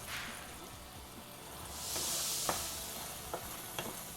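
Thick mint chicken masala sizzling in oil in the pan, its water largely cooked off and the oil separating. Scattered sharp ticks, with a louder burst of sizzle about two seconds in.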